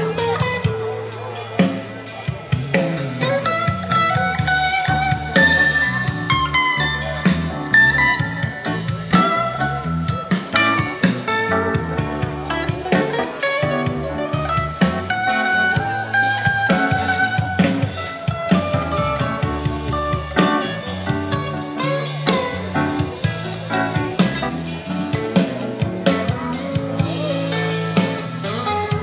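Live band playing an instrumental passage: electric guitars with a gliding, bending melody line over drum kit and keyboard.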